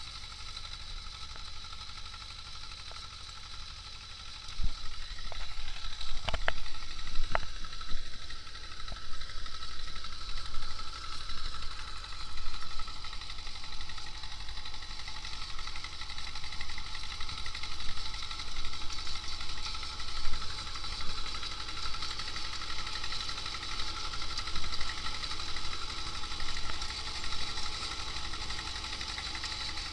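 T-25 tractor's two-cylinder air-cooled diesel running steadily. It gets louder about four and a half seconds in, with a few sharp knocks soon after.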